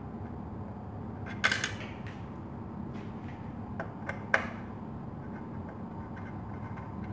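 A short scraping rustle as a brush sweeps metal chips off a steel vise and workpiece, then a few light metal clicks, the last the sharpest, as a threaded steel rod is set into a freshly tapped hole.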